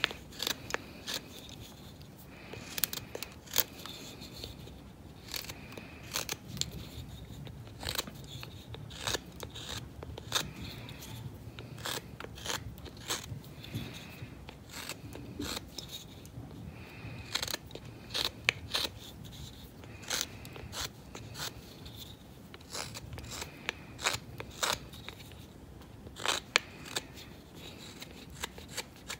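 Carving knife whittling dry linden wood: short cutting strokes at an uneven pace, a few a second, as shavings are pared off round the end of the stick.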